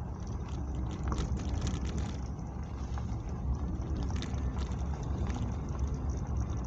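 Wind buffeting the microphone as a steady low rumble, with scattered faint ticks and taps.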